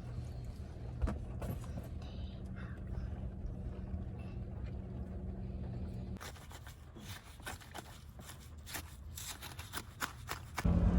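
A steady low hum, then a sudden change to a run of small clicks and scraping sounds, with music starting loudly near the end.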